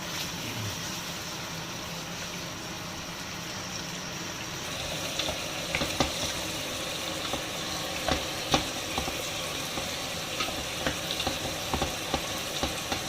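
Food frying in hot oil in a pan, sizzling steadily. The sizzle gets brighter about five seconds in, with scattered sharp pops and clicks from then on.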